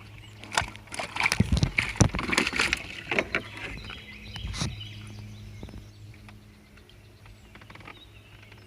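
Water sloshing and knocks as a shellcracker (redear sunfish) is handled and lifted out of the water to be weighed, busiest in the first five seconds. A steady low hum runs underneath.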